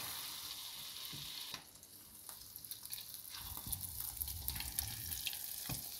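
Whiting fillets coated in seasoned cornflour sizzling skin side down in hot oil and butter in a stainless steel frying pan, with a steady hiss and sharp popping crackles. The sizzle dips briefly about a second and a half in, then crackles again as more fish goes in.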